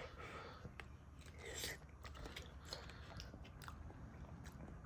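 Quiet chewing and mouth sounds of someone eating a spoonful of MRE chili with beans, with a few faint short clicks.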